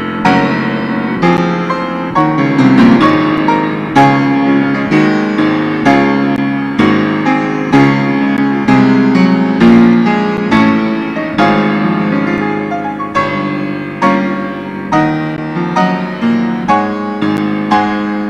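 Yamaha grand piano played solo: chords and melody notes struck about every half second to a second, each ringing on and fading under the next.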